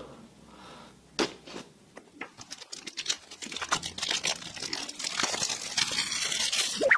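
A sharp tap from the small cardboard box about a second in, then clear plastic packaging crinkling as it is pulled out and handled for the last few seconds.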